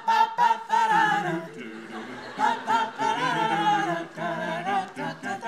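A six-voice a cappella group singing in harmony, with no instruments: several voices layered in short, quickly changing sung syllables.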